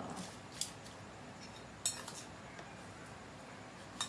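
Three short, light metallic clicks spread across a few seconds, from hands, and the jewellery on them, working curing mix into a deboned chicken on an aluminium tray and dipping into a stainless steel bowl.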